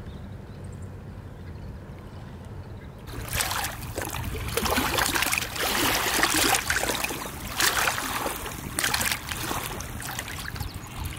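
Lake water splashing and lapping in irregular surges, starting about three seconds in, over a low steady rumble.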